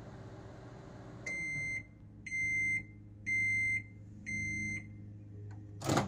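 GE Spacemaker II microwave oven humming through its defrost cycle. About a second in, the running noise drops away and it sounds four high, steady beeps about a second apart, signalling that the cycle has finished. Near the end a loud clack as the door-release button is pressed and the door pops open.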